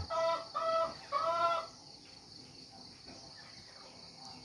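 A rooster crowing: three pitched notes in the first second and a half, the last one longer and arched in pitch.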